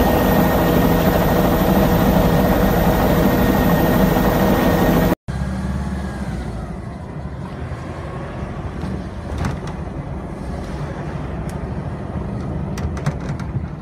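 Steady aircraft engine noise heard from inside the aircraft, holding several steady tones, cut off abruptly about five seconds in. It gives way to quieter outdoor ambience: a low rumble of wind on a phone's microphone and a few faint clicks near the end.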